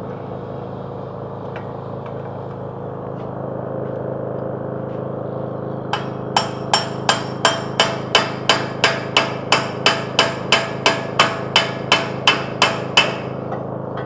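Hammer blows driving a VW's front wheel hub out of its bearing: a quick, even run of about twenty sharp metal strikes, roughly three a second, starting about six seconds in over a steady low hum.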